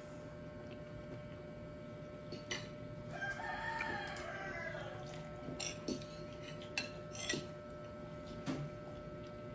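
A rooster crows once, a call of about two seconds that falls in pitch at the end. Scattered sharp clinks come before and after it.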